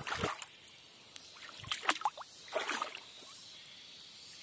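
A hand sloshing and splashing in shallow creek water while groping along the muddy bottom for mussels: a few short splashes with quieter trickling between.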